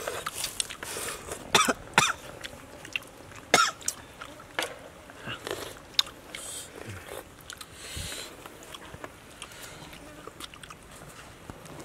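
People eating a meal: wooden spoons scraping and knocking against coconut-shell bowls, with chewing and slurping. A few short, sharp sounds stand out in the first half.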